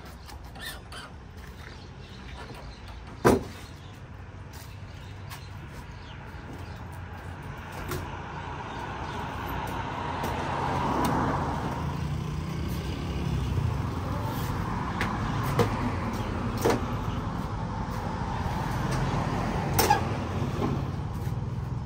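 Knocks and clanks from the doors, panels and a folding stainless-steel table of a food truck being opened and set up, the loudest a single sharp knock about three seconds in. Road traffic hums steadily underneath and swells as a vehicle passes about ten seconds in.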